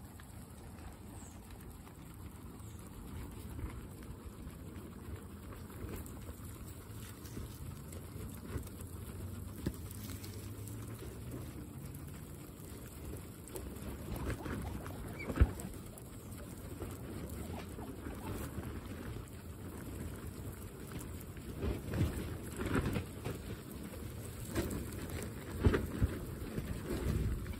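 Guinea pigs chewing fresh grass: quick crunchy chewing with the rustle of grass blades being pulled and tugged. It gets closer and louder about halfway through, with sharper crackles near the end.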